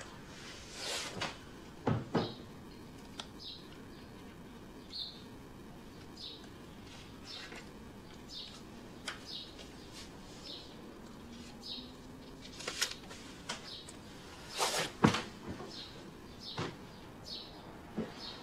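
Two people tussling on a bed: clothes and bedding rustle, with a few thumps, the loudest about fifteen seconds in. Short high squeaks sound about once a second throughout.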